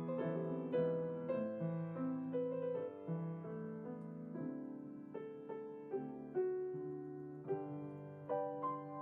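Solo piano playing a gentle piece of chords under a melody, each note struck and left to fade.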